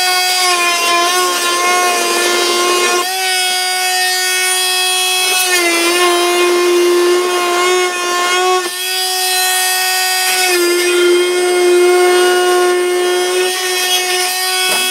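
Fein Multimaster oscillating multi-tool running with a steady high buzz, its blade cutting through plastic to break the joins where the plastic melted and rewelded itself in the earlier cut. The pitch dips slightly a few times as the blade bites harder.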